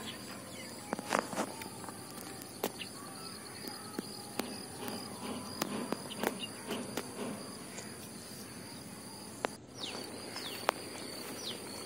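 Lake water lapping and splashing lightly at the surface around people wading chest-deep, with many scattered small clicks and splashes. A steady high-pitched insect buzz runs underneath, and a few short falling chirps come near the end.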